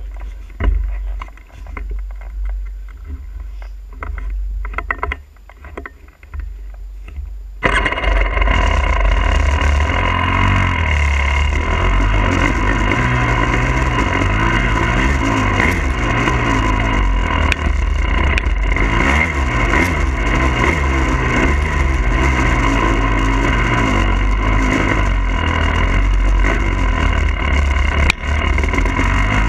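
A 300 cc two-stroke enduro dirt bike being ridden, heard from a mount on the bike. For about the first eight seconds the engine is faint under a rumble and scattered knocks. Then the sound jumps suddenly to a loud, steady engine note that rises and falls with the throttle.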